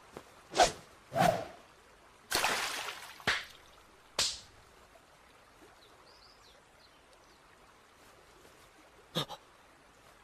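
Anime sound effects of stones being thrown at a river: two quick whooshes, a short rush of splashing water, another sharp swish about four seconds in, then near quiet until two quick taps near the end.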